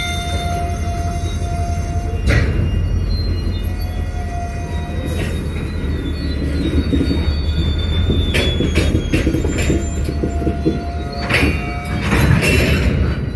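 Slow-moving freight train of covered hopper cars passing close by, with a steady low diesel locomotive rumble and a thin high wheel squeal that stops and starts. Sharp metallic clanks from the cars come about two seconds in, around five seconds, and in clusters near eight seconds and near the end.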